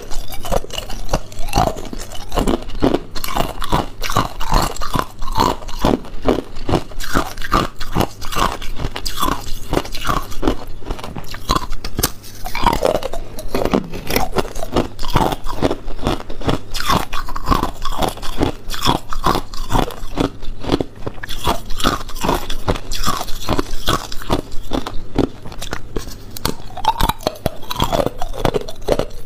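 A person biting and chewing ice, close to the microphone: a continuous run of loud, sharp crunches, several a second, with no pause.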